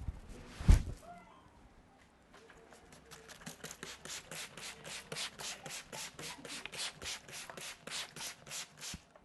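Hands rubbing briskly during a head massage, in even strokes about four times a second that start a few seconds in. A single loud thump comes under a second in.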